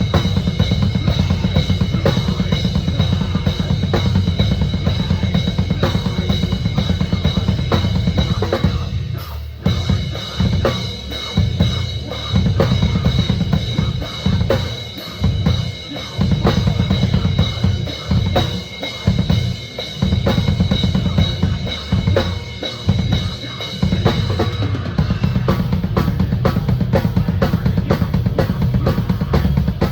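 Metal band playing live, the drum kit loudest: rapid, dense bass drum hits under snare and cymbals, with a brief drop about nine seconds in.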